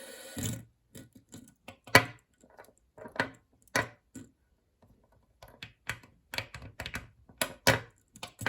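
Plastic fidget cube being fiddled with: a string of sharp clicks at an irregular pace, some coming in quick pairs.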